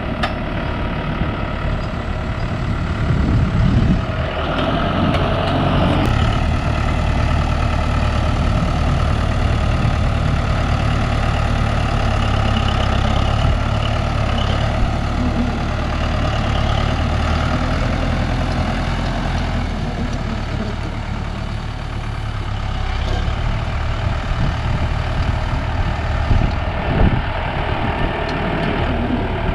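A heavy vehicle's engine running steadily, a little louder a few seconds in.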